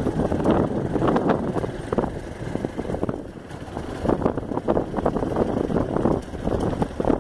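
Riding noise from a moving motorcycle: wind buffeting the phone's microphone in uneven gusts, over the motorcycle's running noise.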